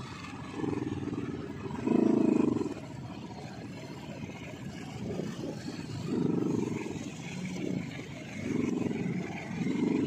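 Motorcycle engines running at idle, with short throttle blips about five times.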